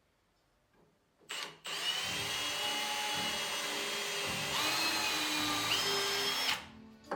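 Electric drill: a quick trigger blip, then the motor running steadily for about five seconds, its pitch stepping up twice near the end before it stops.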